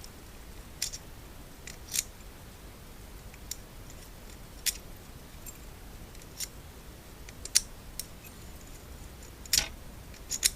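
Key being tested in a freshly recoded Lockwood 201 rim cylinder lock: sharp metallic clicks every second or so as the key goes in and turns the plug.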